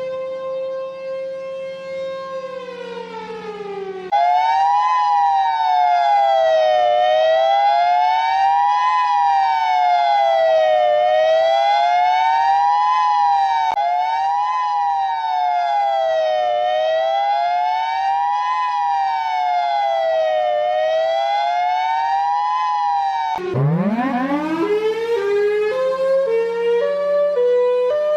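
Tornado warning siren sound effects. A steady wail slides down in pitch and gives way to a loud two-tone siren sweeping up and down, roughly every four seconds. Near the end a siren winds up quickly from low to high and settles into alternating stepped tones.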